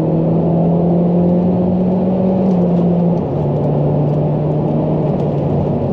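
Saab 9-3 Aero's 2.0-litre turbocharged four-cylinder engine under full throttle, heard from inside the car, accelerating hard in second gear. Its note climbs in pitch for about two and a half seconds, then steps down sharply about three seconds in and carries on.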